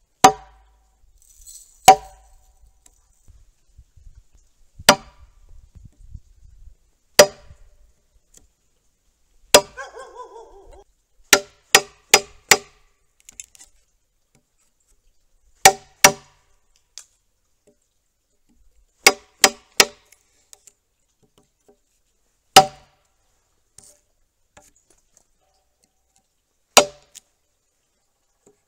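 Hammer blows on a hanok chisel chopping waste from a notch in a softwood timber beam: about sixteen sharp knocks, each with a brief metallic ring, some single and some in quick runs of two to four, at uneven intervals.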